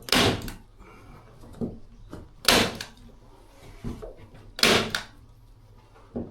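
Three short, sharp noisy strokes about two seconds apart, with fainter knocks and handling sounds between.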